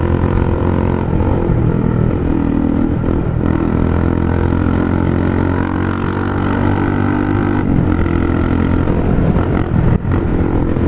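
Loud motorcycle engine running through a bare exhaust pipe with the muffler removed, while riding; its note shifts a little in pitch a few times with the throttle.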